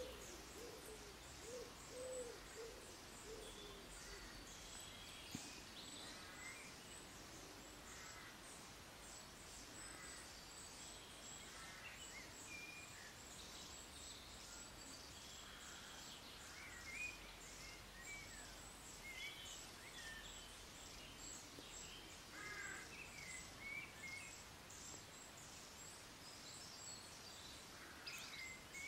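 Faint birdsong: short, scattered chirps and calls of small birds over a low steady background hiss.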